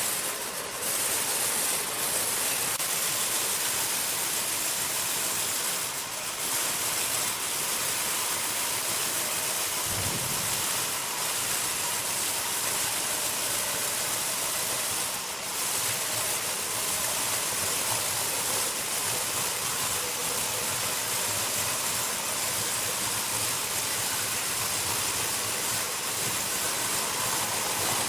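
Sawmill machinery running: a steady high hiss of machine noise with a few brief dips and a short low thump about ten seconds in.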